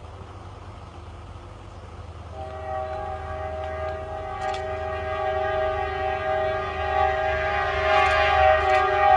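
Train horn sounding a long, steady multi-note blast that comes in about two seconds in and grows louder, over a low rumble.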